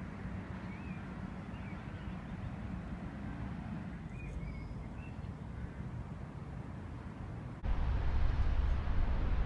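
Steady low background noise with a few faint chirps that sound like birds. About three-quarters of the way through, it cuts abruptly to a louder low rumbling ambience.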